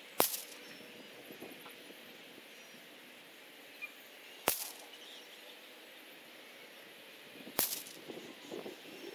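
Three shots from a .17 HMR rimfire rifle, each a sharp crack with a short tail: one at the start, one about four seconds later and a third about three seconds after that, as the shooter works through a five-shot group.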